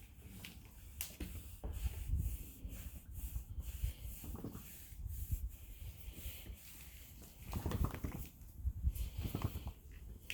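An Arabian mare yawning repeatedly after a workout, a release typical of a horse relaxing: several irregular bursts of breath and jaw movement.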